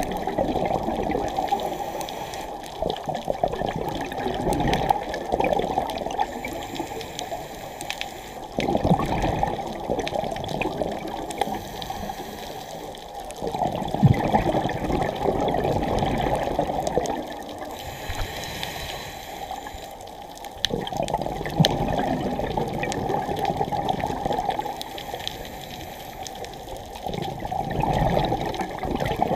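A scuba diver's exhaled bubbles from the regulator, heard underwater: muffled bubbling and gurgling that swells in bursts every few seconds with the diver's breathing.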